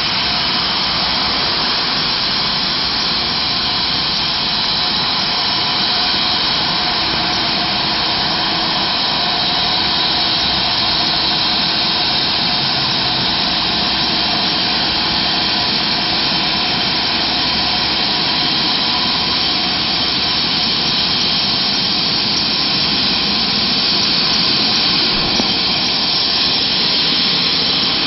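Medical helicopter running on its helipad before takeoff: a steady turbine whine with a few steady high tones, holding at one pitch throughout.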